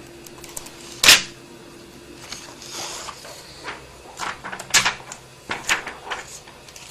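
Handling knocks from a notebook computer's casing as it is moved about: one sharp knock about a second in, then a run of lighter clicks and taps.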